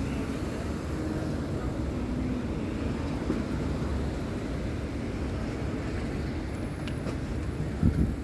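City street traffic: a steady low rumble of vehicles at an intersection, with a short thump near the end.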